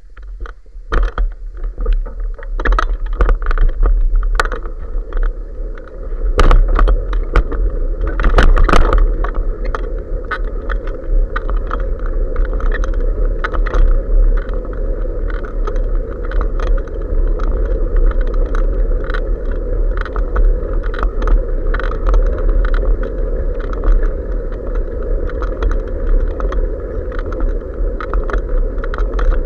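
Riding noise picked up by a bicycle-mounted action camera: wind buffeting the microphone as a steady low rumble, with the camera mount and bike rattling and clicking over the road. The knocks are heaviest in the first nine seconds or so, then settle into a lighter, continuous rattle.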